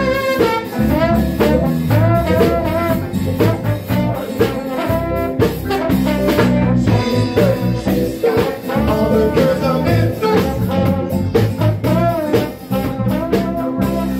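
Live jazzy band music: a trombone plays the lead melody over electric bass, keyboard and a drum kit keeping a steady beat.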